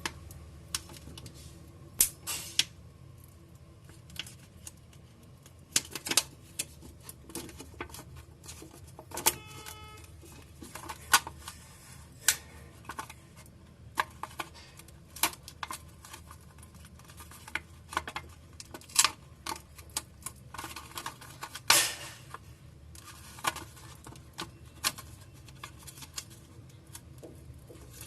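Irregular sharp clicks and taps of small repair tools and plastic parts on a smartphone as its battery is being pried free, over a steady low hum. There is a brief squeak about nine seconds in.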